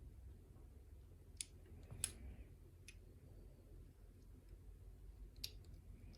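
Four faint, sharp clicks, spread out, from a lock pick and tension wrench working the pins of a challenge lock, against near silence.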